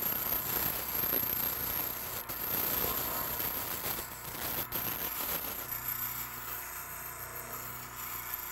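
Bench grinder running while a flat diamond dresser is rubbed across the face of its white grinding wheel: a steady rasping grind over the motor's hum, dressing the wheel to a slight crown. About five and a half seconds in the grinding eases off, leaving mostly the motor's hum.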